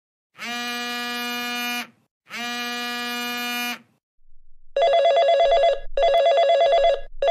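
Telephone call sound effect: two long, steady electronic tones, then a phone ringing in repeated fast-warbling bursts about a second long each.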